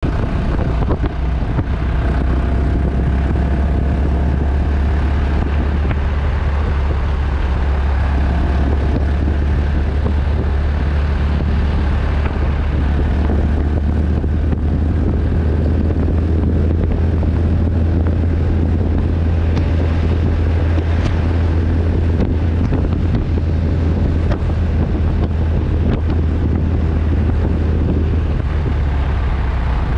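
Steady wind rush and rumble on the microphone of a moving vehicle, over the continuous drone of its running engine and tyres on the road.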